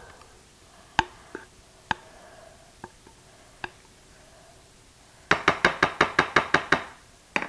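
Spatula scraping cake batter out of a mixing bowl, knocking against the bowl: a few scattered clicks, then, about five seconds in, a quick run of about a dozen sharp taps, roughly seven a second, as the batter is knocked off.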